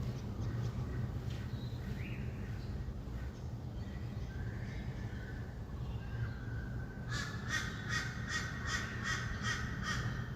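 A bird gives a rapid run of about ten harsh calls, roughly three a second, starting about seven seconds in, after a few fainter calls, over a steady low rumble of distant city traffic.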